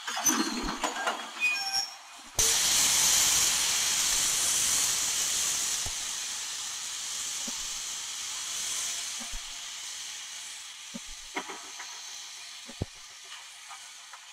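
British steam locomotive letting off steam: a sudden loud hiss bursts out about two and a half seconds in and slowly dies away. Before it come metallic clanks and a few brief high squeals from the train.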